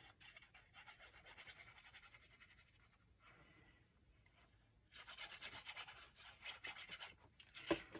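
Faint scratchy rubbing of a squeeze glue bottle's nozzle drawn along the edge of card as glue is laid down, in short stretches. It is a little louder for a couple of seconds near the end, then there is a single small click.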